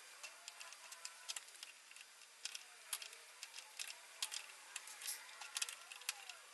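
Needle-nose pliers clicking and ticking against valve stems and the cylinder head as old valve seals are wiggled loose and pulled off. The clicks are quiet and come irregularly, several a second.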